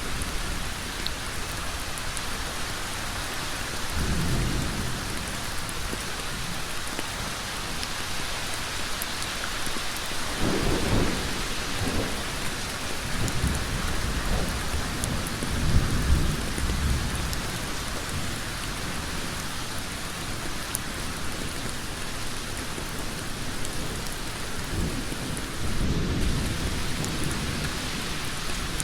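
Heavy rain falling steadily on a road, a dense even hiss. Low rumbles swell and fade several times beneath it, the strongest about halfway through.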